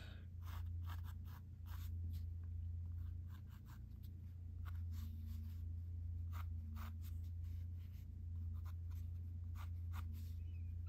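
Sketching on sketchbook paper: many short, irregular drawing strokes, over a steady low hum.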